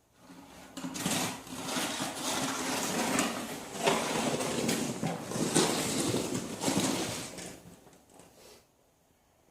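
Snow shovel scraping and pushing through heavy wet snow in several long strokes, stopping about a second before the end.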